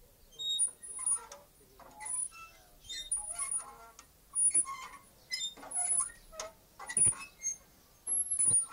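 A playground swing squeaking in short, high-pitched bursts as it swings back and forth, irregularly, more than once a second.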